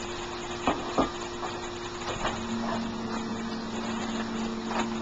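Shredded potato hash browns sizzling in a frying pan, with a few sharp knocks of a spatula against the pan and a steady low hum underneath.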